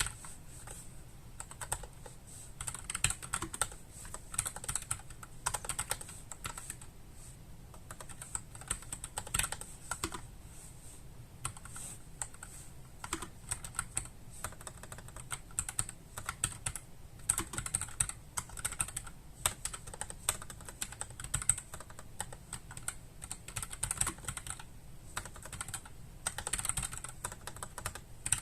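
Typing on a NuPhy Air75 low-profile mechanical keyboard with red (linear) switches: a steady run of key clacks in bursts with short pauses.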